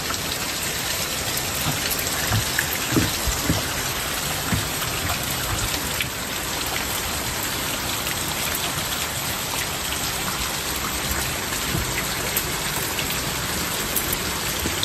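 A steady, even hiss with scattered faint ticks, and a few soft low knocks about two to three and a half seconds in.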